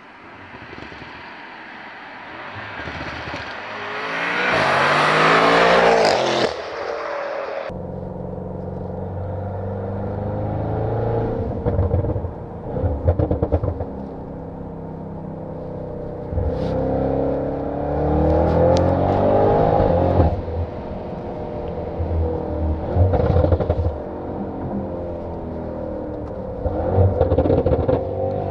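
Tuned Audi RS7 C8 with a twin-turbo V8 going past at speed, its sound swelling to a peak and then cutting off. Then, heard inside the cabin, the same engine accelerates hard, its pitch climbing through each gear with short breaks at several upshifts.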